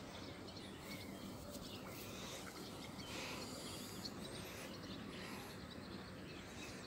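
Faint outdoor ambience: a steady low background noise with scattered faint bird chirps.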